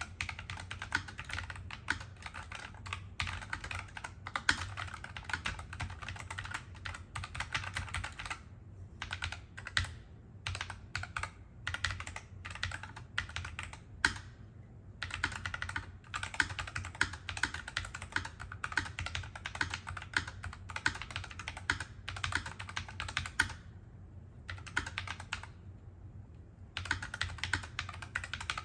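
Typing on a NuPhy Air75 low-profile mechanical keyboard with NuPhy Wisteria tactile switches: fast, continuous key clicks in runs broken by short pauses, over a faint steady low hum.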